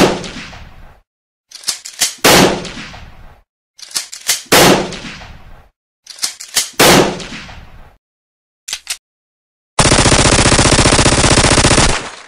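Gunshot sound effects: four single shots about two seconds apart, each preceded by a few sharp clicks and followed by a long echoing tail. Two short clicks follow, then a rapid machine-gun burst lasting about two seconds that cuts off suddenly.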